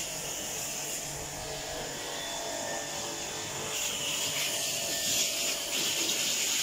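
Steady hiss of a high-pressure water spray from a thin hose hitting wet concrete. It grows louder and fuller about four seconds in.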